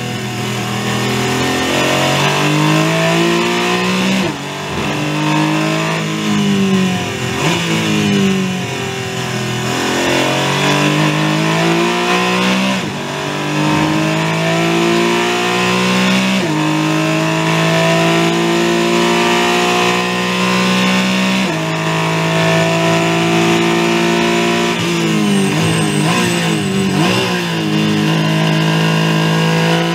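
Porsche 718 Cayman GT4 Clubsport's naturally aspirated flat-six at racing revs, heard from inside the cockpit. Its pitch climbs hard under acceleration, steps down at gear changes and falls away as the car slows for corners, over a constant rush of tyre and road noise.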